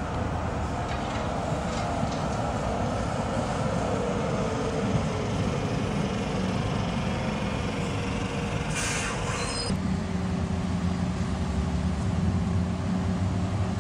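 Electric tram running past on street track: a steady rumble with a thin motor whine that slowly falls in pitch, and a short hiss about nine seconds in. Near ten seconds the sound changes abruptly to a steady low hum.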